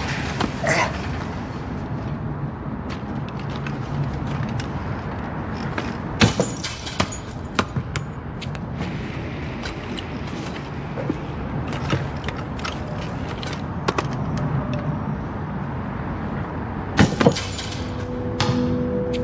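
A basketball bouncing on a concrete floor, with two sharp hits about six seconds in and again near the end that set a metal chain net rattling. Quiet score runs under it, and a sustained music chord enters near the end.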